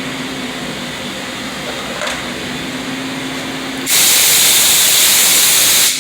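CNC machining centre humming steadily, then about four seconds in a loud, even hiss of compressed air blowing starts suddenly, lasts about two seconds and cuts off sharply.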